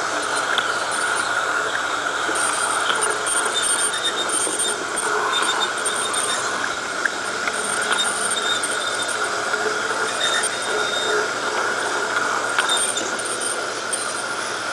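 LGB G-scale model streetcar running along garden railway track: a steady whir from its small electric motor and wheels on the rails, with a few light clicks.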